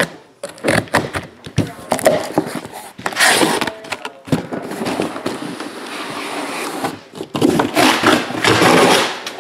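A cardboard shipping case being opened by hand: flaps and tape torn back, then the inner cardboard boxes scraping and sliding out and being knocked down onto the table, in irregular rustles, scrapes and knocks.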